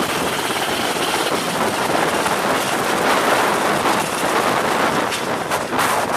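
Steady rushing wind across the microphone on an open ship's deck at sea, with a few short knocks near the end.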